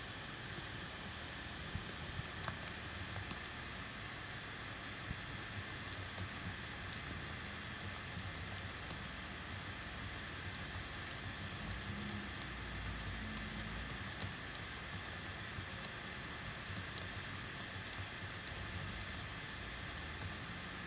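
Steady hiss of an electric fan, with scattered light clicks and ticks throughout and a brief low rumble about twelve seconds in.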